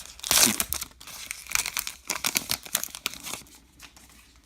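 Crinkling and tearing of a baseball card pack wrapper as it is ripped open and handled. A loud rustle comes just after the start, then quick crackly rustles that die away past the middle.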